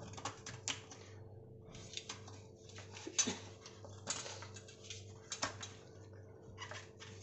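Knife blade prying fresh coconut meat away from the hard coconut shell: irregular sharp clicks and scrapes, several a second.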